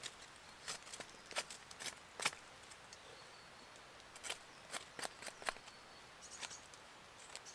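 Footsteps: irregular sharp crunches and clicks underfoot, with faint birdsong behind.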